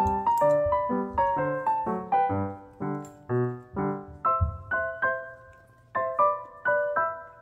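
Background music: a light piano melody of quick single notes, each dying away, with a short pause about five and a half seconds in.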